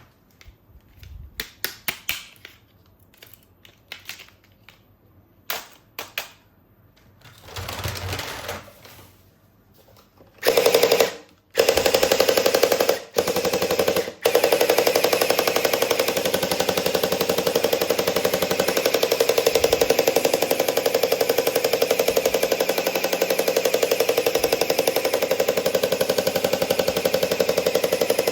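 Light plastic clicks and knocks of handling, then from about ten seconds in a toy gun's rapid machine-gun firing rattle, loud and buzzing, which stops briefly twice before running on steadily.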